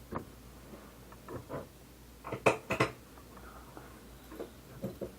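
Cutlery clinking and tapping against a dish in a few scattered strikes, the loudest two close together about two and a half seconds in.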